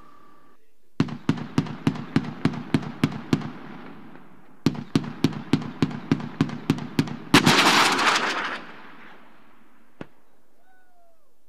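Two bursts of rapid cannon fire from an M2 Bradley's 25 mm Bushmaster chain gun, about a dozen evenly spaced shots each at roughly four a second. They are followed by a louder blast that trails off over about a second.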